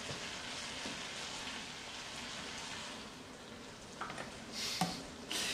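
Linguine sizzling in rendered lard in a steel wok, a steady hiss that fades a little, then a few metal clinks of a utensil in the pot of pasta water near the end.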